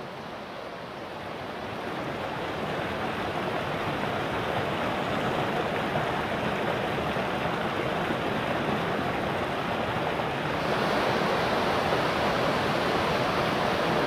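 River rapids rushing, a steady noise of white water that swells over the first few seconds and grows louder and brighter about ten and a half seconds in.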